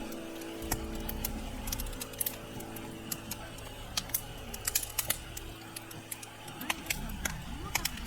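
Campfire of burning wood crackling, with irregular sharp pops and snaps of varying loudness.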